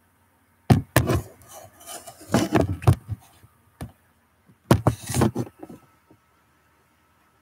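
Handling noise from the recording device being moved: three bursts of knocks and rubbing, about a second, two and a half and five seconds in.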